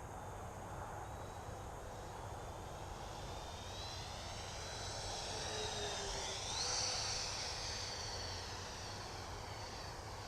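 Electric radio-controlled MiG-29 model jet flying, its motor giving a high whine that swells as it comes closer. About six and a half seconds in, at its loudest, the pitch steps up, then the whine eases off.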